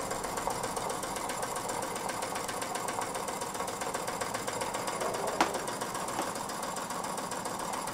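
Mamod SP8 model stationary steam engine running on steam with its regulator opened, a fast, steady, even mechanical beat. One sharper click about five and a half seconds in.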